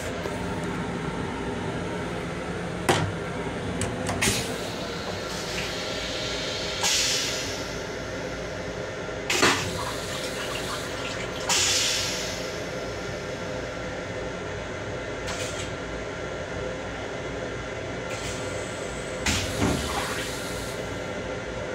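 Train lavatory toilet on a Long Island Rail Road M7 car flushing: water rinses into the stainless-steel bowl in short hissing spurts every few seconds, with a couple of sharp knocks. A steady rumble of the train's running noise lies underneath.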